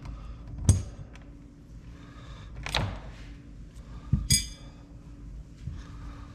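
Knocks and clatter of metal parts and tools being handled on a bench. There is a sharp knock about a second in, a short rattling scrape near the middle, then two quick knocks, the second ringing like metal.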